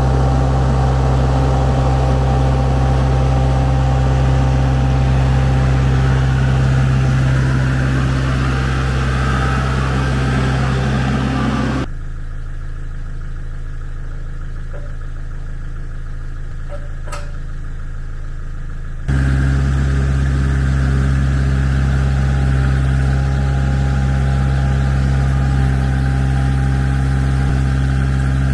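Compact tractor engine running steadily while its front loader moves logs. The engine drops much quieter for several seconds midway, then comes back as loud.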